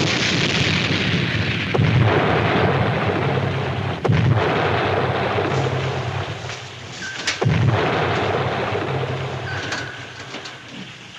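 Depth-charge explosions: four heavy blasts, each trailing into a long rumble, with short high pings recurring between them.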